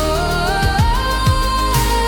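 Instrumental break in a worship song: a held lead melody that steps upward in pitch and then holds, over a steady drum beat.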